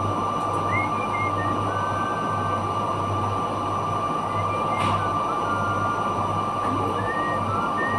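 Steady mechanical noise of running machinery, with a constant high whine and a low hum that cuts in and out about once a second. Short high squeaks come now and then, and there is a single sharp click about five seconds in.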